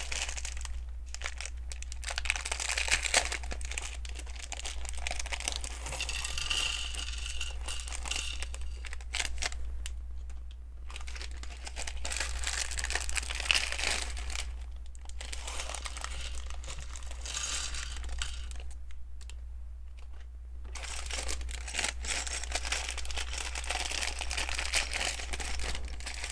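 Plastic LEGO parts bags being crinkled and torn open, in several spells broken by brief pauses, over a steady low hum.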